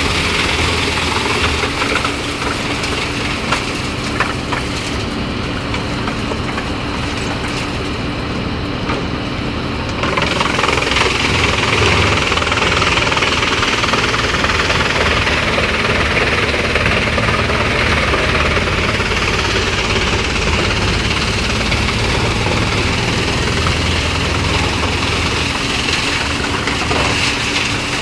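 Large wood chipper running, with a steady machine noise that becomes louder and harsher about ten seconds in.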